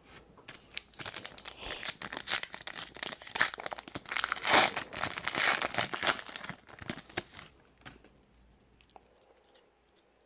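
A trading card pack's plastic wrapper being torn open and crinkled, in a dense crackling run that is loudest just past the middle and dies away about three-quarters of the way through.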